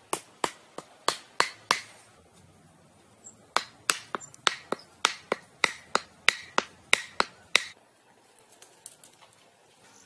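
Sharp knocks, as of hard things struck together. About six come in the first two seconds, then after a pause about fourteen more at a steady rhythm of roughly three a second, stopping a couple of seconds before the end.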